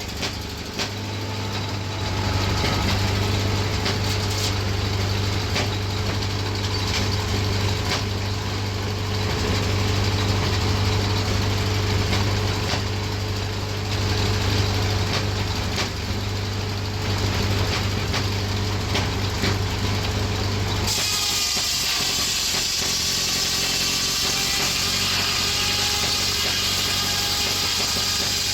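1931 Ford Model A four-cylinder flathead engine running steadily, driving a circular sawmill by flat belt. About two-thirds of the way through, the low engine hum falls back and a high whine with many overtones takes over.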